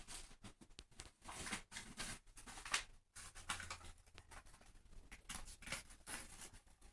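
Irregular rustling, scraping and light clicks of kindling being handled and laid in a brick stove's firebox.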